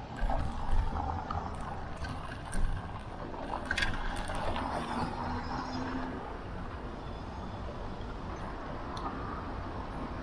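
City street traffic noise heard from a moving bicycle, with a couple of sharp knocks in the first three seconds and a brief low steady hum around the middle.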